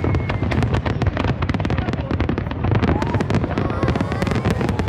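Fireworks going off in a dense, unbroken barrage of bangs and crackles over a deep rumble.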